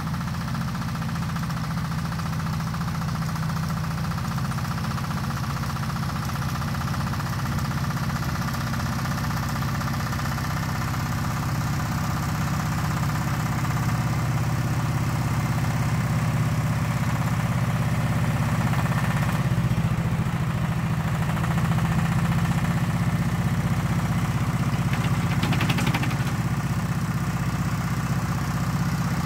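A homemade tractor's engine runs steadily as the tractor pushes dirt with its front blade. The engine grows a little louder from about halfway through as the tractor comes closer.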